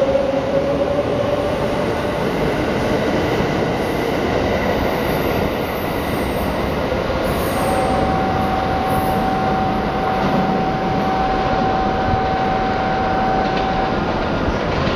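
Limited express electric train pulling out of the station, a steady loud rumble of wheels and running gear as it moves away. From about halfway, a steady high whine sets in and holds for about six seconds.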